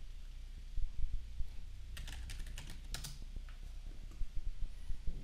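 Computer keyboard being typed on: a quick run of about a dozen keystrokes about two seconds in, followed by a couple of single key presses, as a password is entered.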